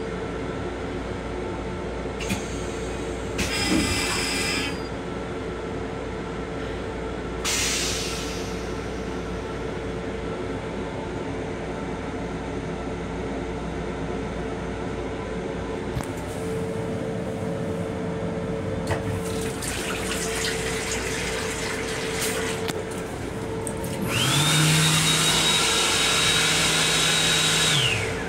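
Toilet on an M7 commuter railcar flushing: a rush of water, then the flush mechanism running loudly with a steady high whine and a low hum for about four seconds before it stops, over the running train's steady hum.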